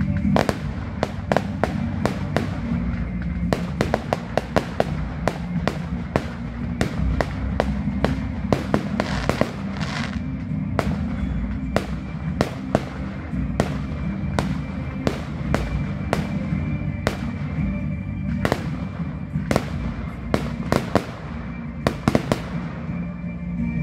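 Aerial fireworks shells bursting in quick, uneven succession, as many sharp bangs and crackles that bunch into rapid volleys every few seconds. Music plays underneath.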